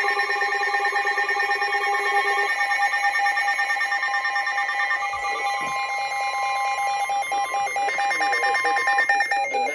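Emergency alert attention tone: a loud, steady electronic alarm of several tones at once, sounding between broadcast weather warnings. Some of its tones drop out partway through, and it stops at the very end.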